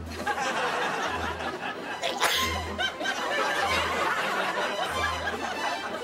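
People laughing and giggling over a low, pulsing music bed, with one short hissing burst about two seconds in.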